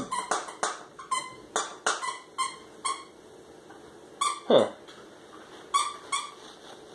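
Phillips screwdriver backing out the side-plate screws of an Omoto Chief 6000 CSM baitcasting reel: short squeaky clicks, two or three a second, that thin out about three seconds in, with one falling squeak near the middle.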